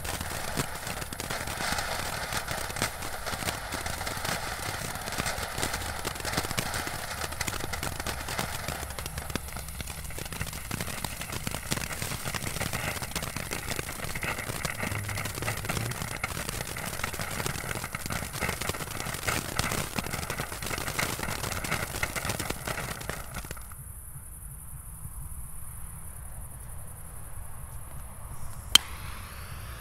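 A small category 1 firework crackling, a dense run of rapid little pops over a hiss, which stops abruptly a little over three quarters of the way in. One sharp pop near the end.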